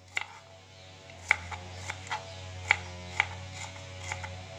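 Kitchen knife slicing shallots thinly on a wooden chopping board: sharp, irregular knocks of the blade meeting the board, about two a second, over a steady low hum.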